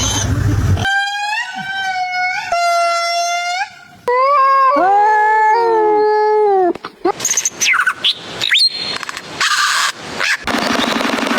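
Canine howling: a high, drawn-out howl held mostly on one pitch with brief breaks, then a lower, wavering howl that bends up and down. After that come quick calls sweeping up and down, and a harsh, noisy call near the end.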